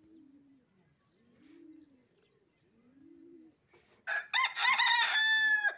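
A rooster crowing once, loud and close, about four seconds in: a few broken opening notes, then a long held final note that cuts off. Faint bird chirps sound underneath.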